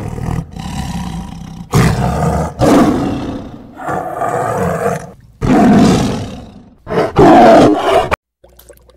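Tiger roaring in a series of loud, rough calls, about six, each a second or so long with short gaps between, the last cut off suddenly near the end.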